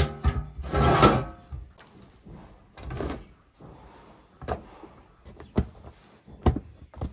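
A metal lid scraping and ringing as it is slid over the mouth of a clay tandoor, loudest in the first second or so, followed by several short dull knocks as the lid is covered with blankets and pressed down.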